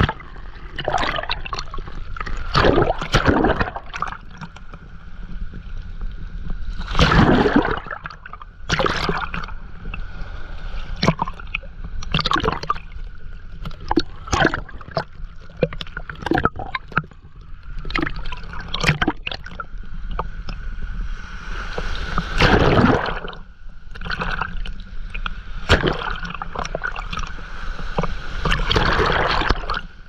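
Shallow surf washing over and around a GoPro at the water's edge: water sloshing and gurgling in irregular splashes, with louder rushes of a wave about seven seconds in, around twenty-two seconds, and near the end.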